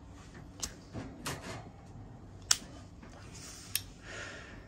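A handful of sharp clicks and light taps, about a second apart, from a metal Zippo-style pocket lighter being handled.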